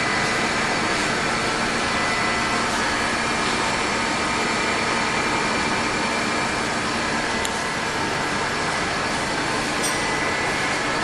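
Steady industrial machinery noise: an even hiss with several constant whining tones running through it, unchanging throughout.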